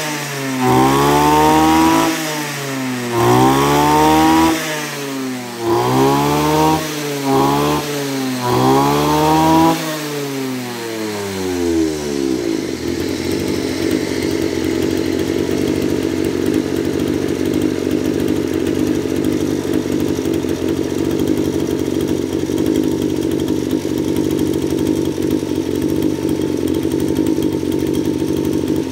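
Kawasaki TJ27 brush cutter's 27cc two-stroke engine revved up and back down again and again, its pitch rising and falling with each blip of the throttle, for about the first twelve seconds, then settling to a steady idle.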